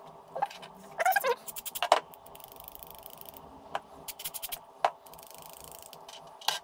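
Aerosol contact cleaner hissing in short sprays into a cassette deck's volume control potentiometer, among sharp clicks and knocks from handling the can and the control.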